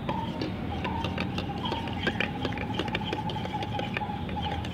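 Metal spoon stirring a thick foamy mixture in a steel tumbler, clinking and scraping against its sides in quick irregular ticks, over a steady high tone.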